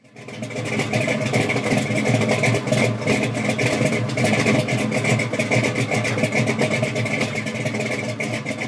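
A vehicle engine running loudly and steadily with a rapid pulsing exhaust note, cutting in suddenly at the start.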